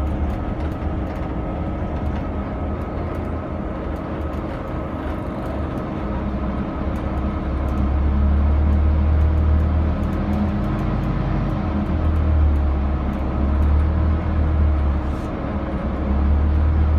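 Scania K320UB6 city bus's five-cylinder diesel engine and drivetrain heard from inside the passenger cabin while the bus is driving: a steady low drone with a hum above it. The drone swells louder about eight seconds in and again near the end, with faint clicks and rattles from the interior.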